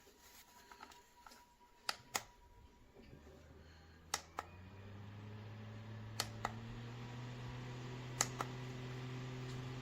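Small battery-powered USB desk fan: its button gives a double click about every two seconds, four times. Its motor hum starts a few seconds in and rises slowly in pitch and loudness as the fan speeds up.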